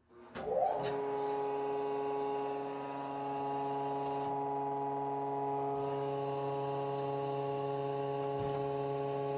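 A hydraulic pressurizing machine (test stand) is switched on. There is a click, then a short rising whine within the first second as it spins up, then a steady running hum.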